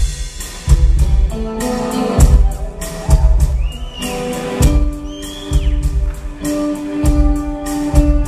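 Live symphonic rock music: an orchestra holds sustained chords while a drum kit lands heavy bass-drum and cymbal hits, with a few sliding high notes over the top.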